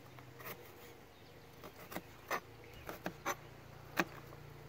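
Chef's knife chopping onion on a plastic cutting board: a handful of short, sharp knocks of the blade striking the board at an uneven pace.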